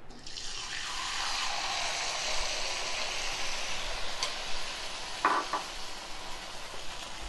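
A batter-coated pappadam (pappada vada) sizzling as it deep-fries in hot oil in a kadai. The sizzle starts suddenly as it goes into the oil, then holds steady.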